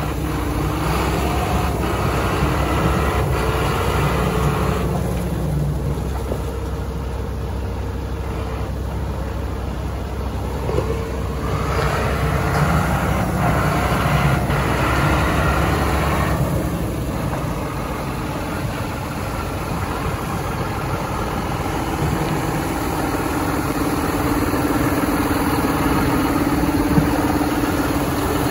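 John Deere 6930 tractor's six-cylinder diesel engine running steadily, swelling louder twice for a few seconds, near the start and about halfway through.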